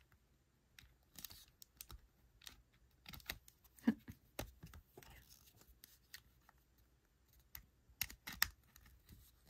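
Light plastic clicks and handling rustles as a white charger's USB-C plug is fumbled into the charging port of a GoPro battery grip. There is a sharper knock about four seconds in and a quick run of clicks near the end.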